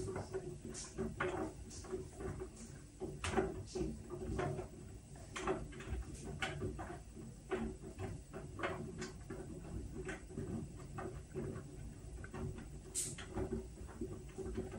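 Whirlpool front-loading washing machine running a Steam Refresh cycle: a steady low hum with irregular soft knocks and clicks, and a brief high-pitched chirp near the end.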